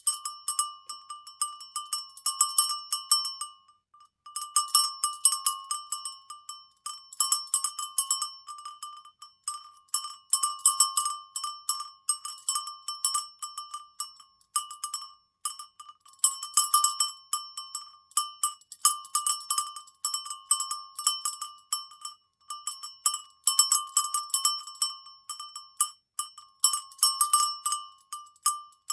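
Cowbells shaken so that they clank and ring in irregular bursts of rapid strokes. Each stroke rings at the same few pitches, and the shaking stops briefly a few times.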